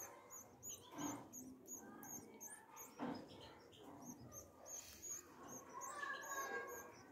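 Canary nestlings begging for food: faint, high, rapid cheeps repeated about three times a second.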